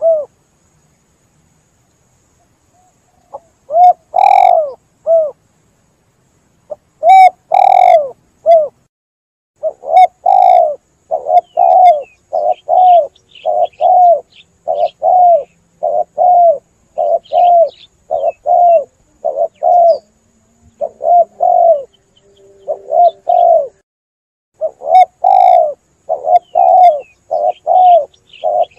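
Spotted doves (tekukur) cooing in repeated phrases of low coos. The coos are sparse at first, with a few seconds of silence early on, then come almost without pause from about ten seconds in. Faint chirps of small birds sound above the cooing.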